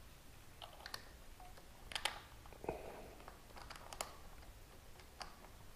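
Faint scattered metal clicks and clinks of a bolt and washer being handled and fitted by hand into a motorcycle slip-on muffler's hanger bracket. The sharpest clicks come about two and four seconds in.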